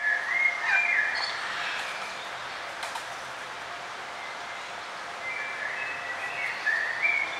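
Several birds chirping and warbling over a steady outdoor hiss, with bursts of song in the first second or so and again from about five seconds in.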